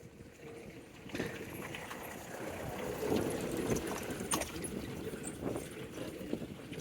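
A vehicle passing close by on the road; its noise swells about a second in and fades near the end, with scattered clicks.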